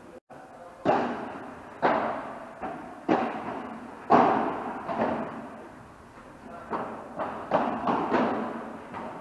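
Padel rally: a padel ball struck back and forth by rackets and bouncing, about a dozen sharp hits, each trailing off in a reverberant tail, coming faster near the end.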